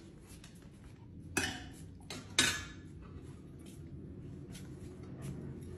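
A metal-and-glass garden stake light clinking and knocking against the floor as a dog carries it in its mouth. Light taps run throughout, with two louder clanks about a second apart near the middle.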